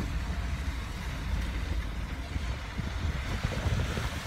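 Wind buffeting the phone's microphone as an irregular low rumble, over a steady hiss of outdoor noise on the wet street.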